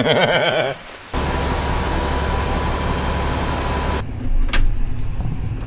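Tractor engine running steadily, with a faint steady tone over it; the sound turns uneven with a few clicks after about four seconds.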